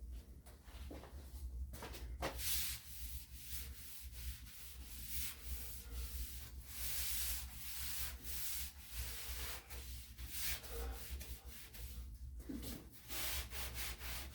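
Damp drywall sponge rubbed back and forth over dried joint compound on a wall: wet sanding, in repeated uneven scrubbing strokes that grow busier about two seconds in.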